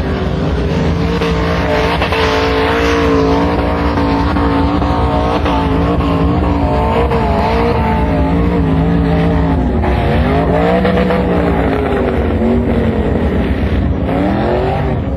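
Off-road vehicle's engine running hard under load over a steady rushing noise. Its pitch wavers, then rises and falls as it revs about ten seconds in and again near the end.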